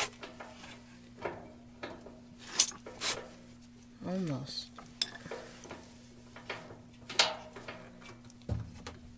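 Sharp metal clicks and clinks from the suspension springs and their hooks on a Maytag top-load washer tub as the springs are worked back into place by hand. There is a short grunt about four seconds in.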